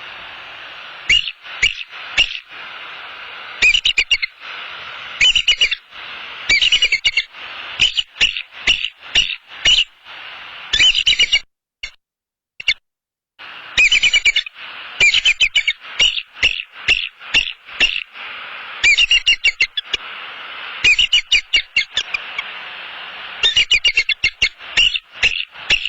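Bald eagles alarm calling at an intruder: repeated bursts, each a rapid string of high notes, over a steady hiss. The sound cuts out completely for about two seconds a little before the middle.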